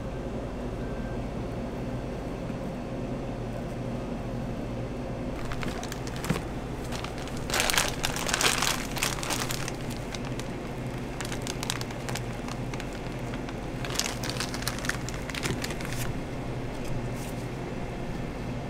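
Plastic piping bag of whipped cream crinkling in two spells as it is handled and squeezed, over a steady low background hum.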